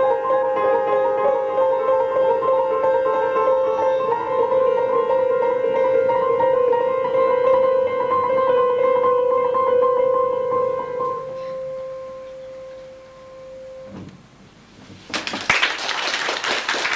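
Upright piano playing fast repeated notes, then a last note that rings on and fades away. Applause breaks out about fifteen seconds in.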